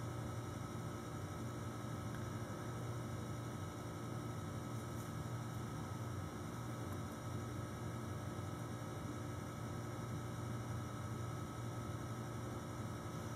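Steady low electrical hum under a faint hiss.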